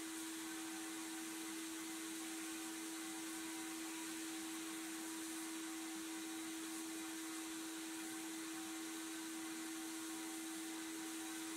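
Sandblast cabinet in use: the steady hiss of a blast gun stripping rust from a steel toy car part, over a steady machine hum.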